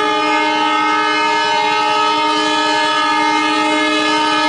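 A diesel locomotive's air horn sounds one loud, long, steady blast.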